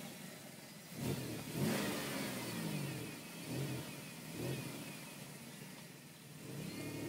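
2000 Chevrolet Monte Carlo SS's 3.8-litre V6 heard through a 28-inch Thrush glasspack fitted in place of the resonator, as the car pulls away. The exhaust note rises in pitch in several short surges.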